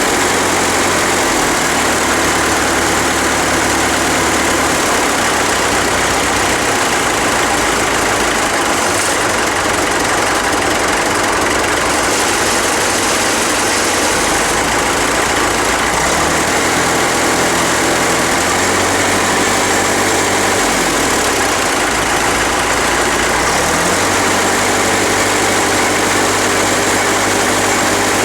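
Farmall diesel tractor engine running, its speed stepping and sweeping up and down several times before settling near the end. Loose emblems and sheet metal buzz from the vibration.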